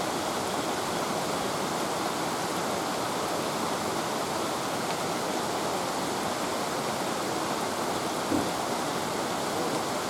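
Fast-flowing floodwater rushing steadily, with a brief small knock near the end.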